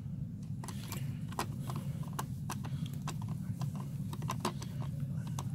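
Hand screwdriver driving a screw into the plastic base plate of a Bissell Powerforce Compact vacuum: a run of sharp, irregular clicks, several a second, over a steady low hum.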